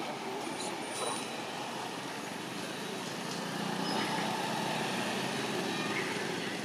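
Outdoor background noise with a steady engine hum from a motor vehicle, swelling from about three and a half seconds in and easing off near the end.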